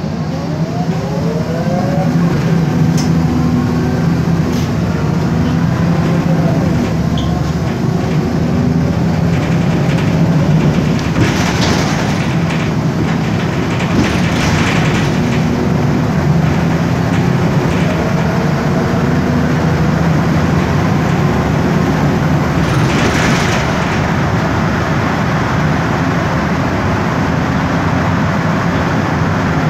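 MAN Lion's Classic city bus's straight-six CNG engine (MAN E2876 LUH03) and ZF Ecomat six-speed automatic gearbox running under way, heard inside the passenger cabin. Its whine rises in pitch as the bus accelerates in the first couple of seconds, and again briefly later. A few short rushing swells come over the steady engine sound.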